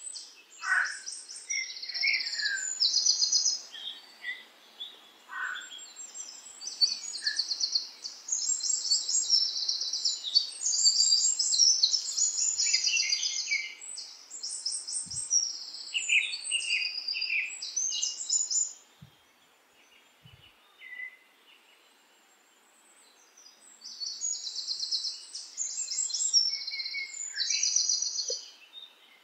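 Several small birds singing: fast high trills and chirps coming in bursts, dying away to near quiet for a few seconds past the middle before the trilling resumes.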